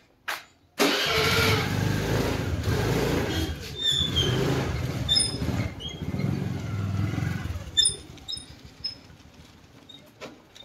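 Small motor scooter engine running as the scooter pulls away and rides past close by, then fading as it moves off down the lane. The engine sound comes in suddenly about a second in and drops away over the last few seconds.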